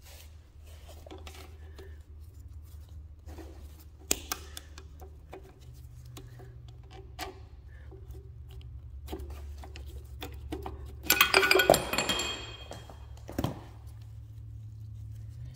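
Small metal parts of a hit-and-miss engine's governor and detent linkage clicking and clinking as they are handled, with a louder burst of ringing metallic clinks about eleven seconds in. A low steady hum runs underneath.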